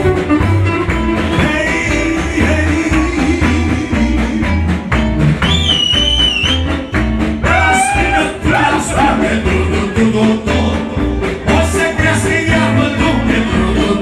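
Live band playing upbeat dance music on keyboard and electric guitar, with singing over a steady bass beat.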